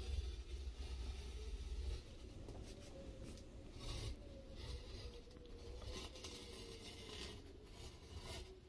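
A utility knife blade scoring the plastic edge of a flexible solar panel in a series of short, light scraping strokes, cut after cut along the same line. A low rumble underlies the first two seconds.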